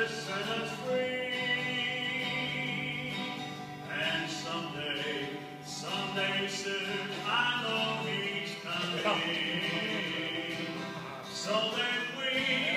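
Voices singing a slow song to acoustic guitar accompaniment, amplified through microphones.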